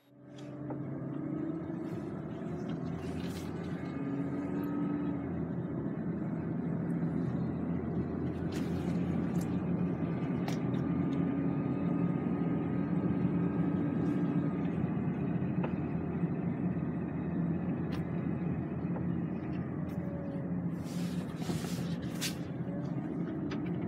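A car driving, heard from inside the cabin: a steady hum of engine and road noise, with a few faint clicks.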